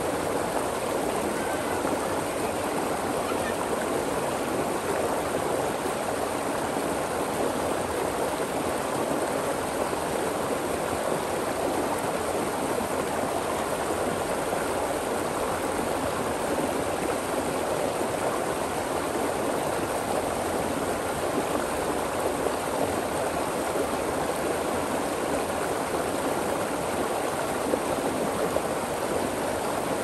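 Stream water flowing steadily over and between rocks.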